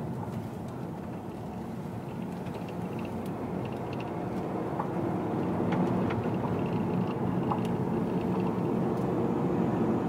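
Road and engine noise inside a moving car's cabin: a steady, low noise that grows slightly louder about halfway through.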